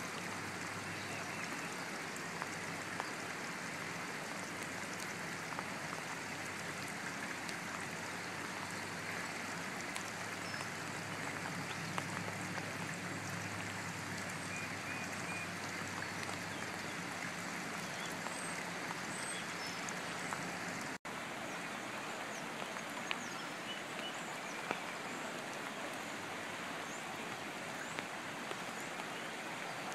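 Steady rain with the rushing of a rain-swollen creek, scattered small drop ticks over it. The sound breaks off for an instant about two-thirds of the way through.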